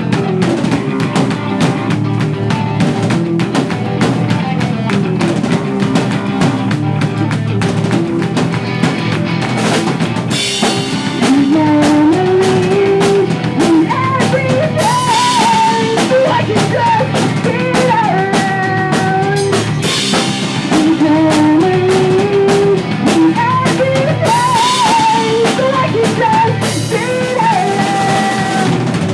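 Pop punk band playing live: electric guitars, bass and a driving drum kit. A lead melody line comes in about eleven seconds in.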